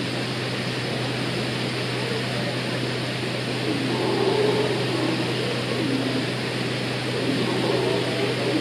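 Red howler monkeys howling: a continuous, wavering sound that grows stronger about halfway through.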